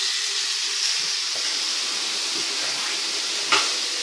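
Bathroom sink faucet running, a steady stream of water falling into the basin and down the open drain. A single sharp click about three and a half seconds in.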